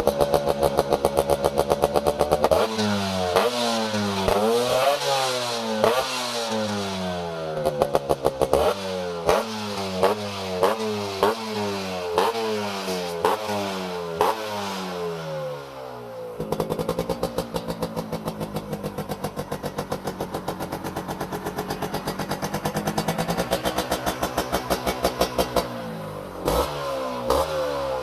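Yamaha RX100's two-stroke single-cylinder engine blipped over and over, each rev rising and falling quickly in pitch, with sharp pops from the exhaust. It drops to a steady idle about halfway through and starts revving again near the end.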